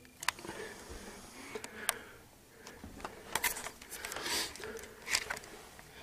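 Handling noise: a hand on a plaque, a picture frame and the phone makes a handful of sharp clicks and taps, with a longer rubbing, brushing sound about four seconds in.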